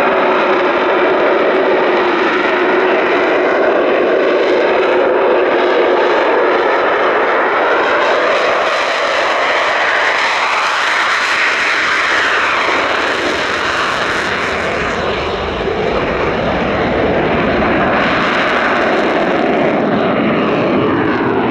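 Eurofighter Typhoon's twin jet engines running loud and steady. Around the middle, a whine sweeps up and back down in pitch.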